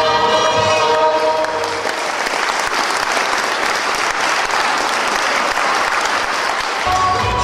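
Crowd applauding as a group song ends about a second and a half in. New music starts near the end.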